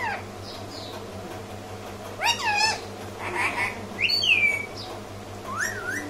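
Pet rose-ringed parakeet calling: a run of short, pitch-bending squawks and whistles starting about two seconds in. The loudest is a falling whistle about four seconds in.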